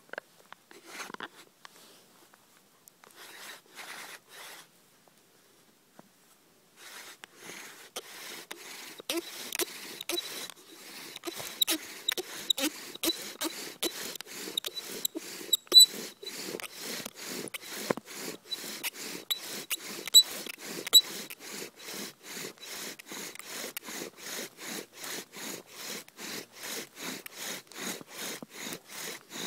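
Bow drill for friction fire: a willow spindle spun by a corded bow against its wooden hearth block, giving a steady back-and-forth rasping rhythm that starts about seven seconds in, with a few high squeaks. Before that there are only scattered handling sounds.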